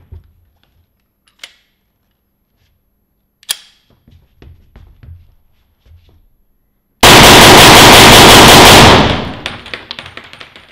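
Glock 34 Gen 4 pistol in 9x21 fired ten rounds in very fast succession, about two seconds of near-continuous, very loud shots that ring out and fade afterwards. Before the string, a few faint clicks and one sharper click.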